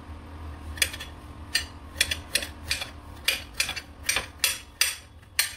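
Kitchen knife chopping carrots on a ceramic plate. The blade strikes the plate in sharp clicks, about two to three a second, coming faster in the second half.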